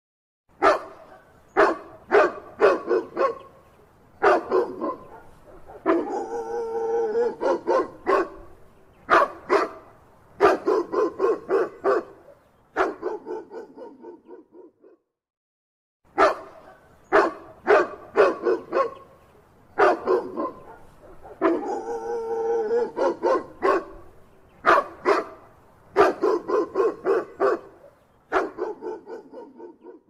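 A dog barking over and over in quick runs, with a longer drawn-out stretch of joined barks about six seconds in. The same fifteen-second sequence then plays again after a second's gap.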